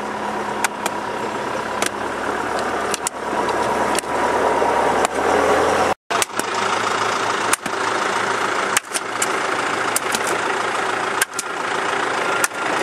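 Engine of an earthmoving machine running steadily, with scattered sharp knocks and clicks throughout.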